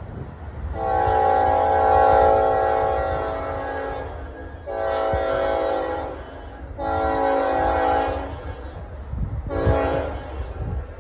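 Diesel locomotive air horn sounding a multi-note chord as the train approaches a grade crossing. It gives four blasts: one long, two shorter and a brief one near the end, over a low steady rumble.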